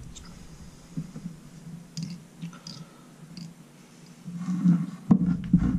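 Fly-tying handling at the vise: the thread and fingers make light scattered clicks and rustles while a bundle of craft fur is bound onto the hook, with a louder stretch of handling near the end and one sharp click about five seconds in.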